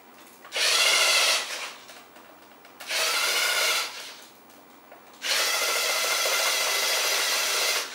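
Lego Mindstorms NXT servo motors whirring as they drive the remote-controlled Lego car. There are three bursts: two short ones, then a longer one of about two and a half seconds.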